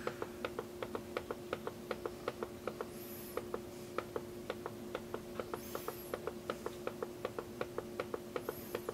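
Rapid, evenly spaced mechanical clicking, about five clicks a second, over a steady low hum. Three faint, very high chirps come in about three, six and nine seconds in.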